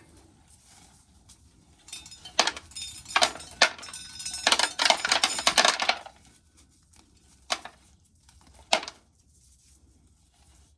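Shelled corn kernels rattling as they are scooped up with a coffee can and poured, a few separate clatters building into a dense rattle for about two seconds, followed by two sharp clicks.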